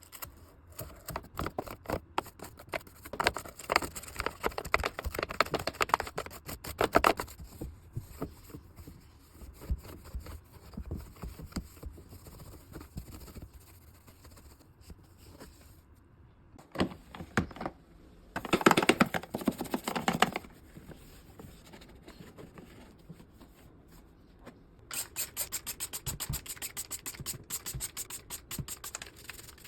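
Hand-cleaning a washing machine: irregular bouts of scraping and rubbing strokes with small clicks, then a louder dense rush about two-thirds of the way in, then fast light ticking near the end.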